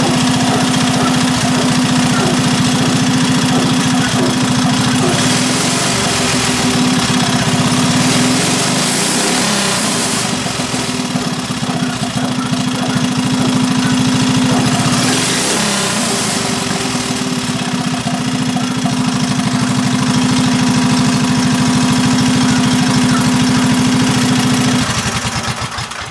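Freshly rebuilt Briggs & Stratton 5 hp single-cylinder flathead go-kart engine running loud through an open header pipe on its first test fire. It is revved up twice, about a third of the way in and again a little past halfway, then shut off near the end.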